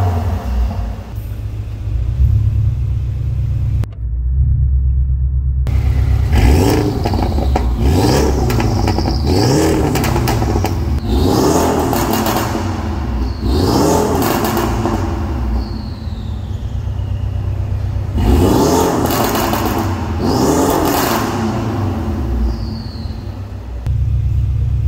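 Porsche 718 Cayman engine through a catless downpipe and custom cat-back exhaust, revved again and again while standing still. The pitch climbs and falls with each of about half a dozen blips, with crackles and pops as the revs drop, and it settles to a steady idle near the end.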